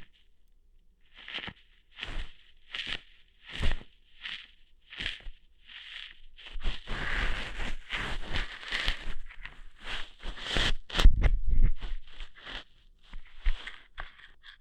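Close-up ASMR ear-hair plucking sounds: a string of separate crackly snaps, about one every three-quarters of a second, then a denser stretch of scratchy crackling in the middle, then quicker snaps again.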